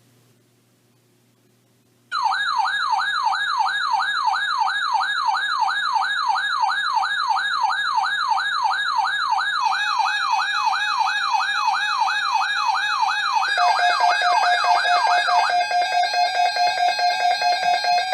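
Weather alert radio's electronic siren alarm, a loud warbling tone sweeping up and down about two and a half times a second, starting after two seconds of faint static. Near the end the warble stops and gives way to rapid, steady beeping tones.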